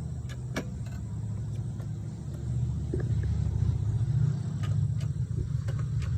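1982 Yamaha XJ750's air-cooled inline-four engine running in neutral with the side stand down, a steady low rumble that grows louder about two and a half seconds in.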